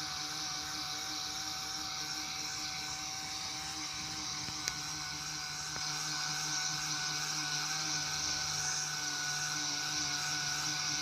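A small electric power tool running at a steady whine, with one sharp click about halfway through.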